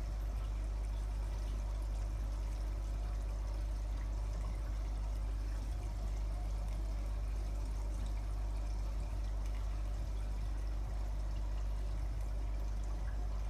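Steady flow of water in an aquarium, as from a filter return splashing into the tank, over a steady low hum.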